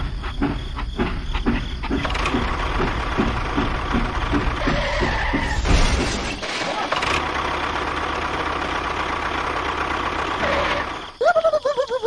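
A battery toy train and a mini tractor running. A regular clatter of about five beats a second for the first two seconds gives way to a steady motor rumble with hiss, and high rising chirps start near the end.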